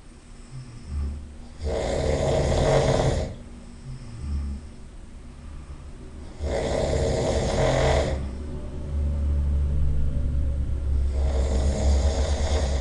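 A person snoring in sleep: three noisy breaths about four and a half seconds apart, with a low rattling snore between them that grows steadier in the second half.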